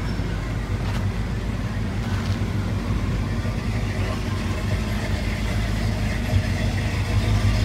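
A vehicle engine running steadily at idle, a low even rumble, with faint crowd noise behind it.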